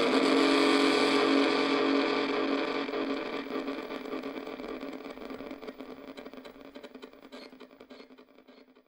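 Circuit-bent electronic sound device playing a dense, buzzy drone of stacked steady tones over noise. From about two seconds in it fades away steadily, breaking up into scattered crackles near the end.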